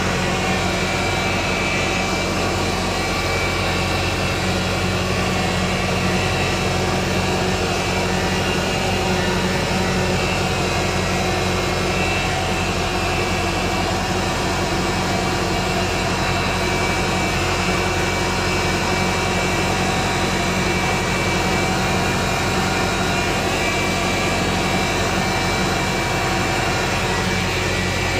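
Massey Ferguson 165 tractor's four-cylinder diesel engine running steadily, pulling a pneumatic seed drill, heard close up from the driver's seat.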